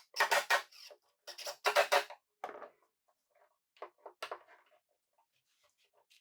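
Plywood workbench parts being handled: a series of short knocks and scrapes in quick clusters in the first half, then near quiet.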